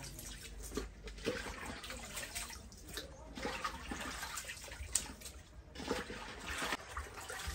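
Water sloshing and splashing in a metal basin as chicken pieces are washed by hand, with irregular small splashes as they are lifted and dropped back.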